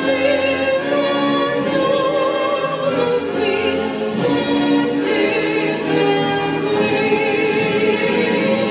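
Female vocal trio singing 1940s-style close harmony over backing music, holding long notes with vibrato.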